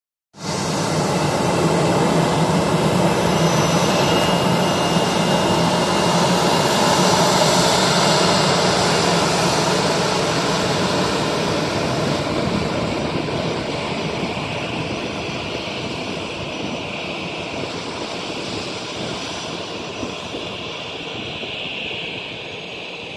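Jet engines of an Air India Airbus A320-family airliner at high thrust on its takeoff roll: loud, steady engine noise with a high whine. It comes in suddenly at the start and slowly fades from about halfway as the plane moves off down the runway.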